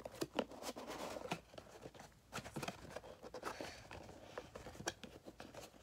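Hands handling and opening a small cardboard speed-cube box: scattered light taps, scrapes and rustles.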